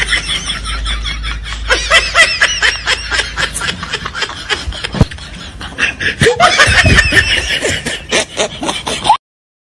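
People laughing and giggling in rapid, overlapping bursts, with sharp clicks scattered through. It breaks off suddenly a little after nine seconds in.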